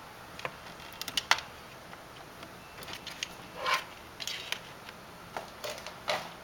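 Scattered light clicks and taps of hands handling a resistance meter's test lead cable and plastic parts on a table, the sharpest tap about a second and a half in.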